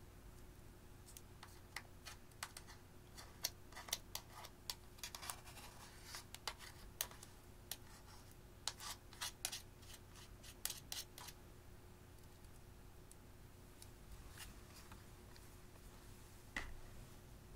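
A thin metal tool scraping and chipping pressed powder makeup out of a plastic compact: a string of crisp scratches and clicks that thins out after about eleven seconds, with a single click near the end.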